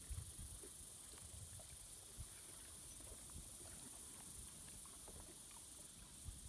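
Faint lapping of shallow lake water and small splashes around legs wading in it, with a low uneven rumble of wind on the microphone and a few scattered faint ticks.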